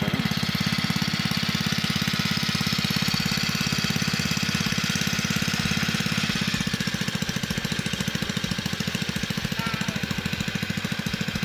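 A small engine running steadily with a rapid, even beat.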